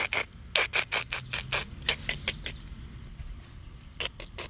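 A rapid, irregular run of sharp clicks and crackles, several a second. It pauses for about a second and a half in the middle and starts again near the end.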